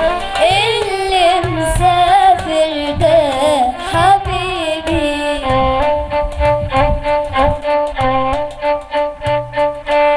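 Violin playing an ornamented, sliding Arabic melody, changing about halfway through to short, evenly repeated bowed notes, over a low rhythmic accompaniment.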